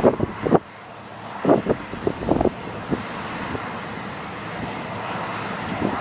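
A combine harvester and a tractor running side by side in the field, a steady engine noise with short, irregular bursts in the first two and a half seconds.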